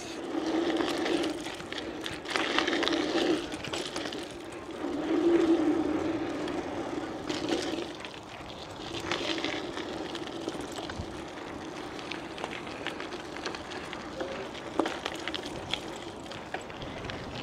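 Bicycle being ridden on a trail: its tyres hum in surges lasting about a second each, then more steadily, with scattered rattles and knocks.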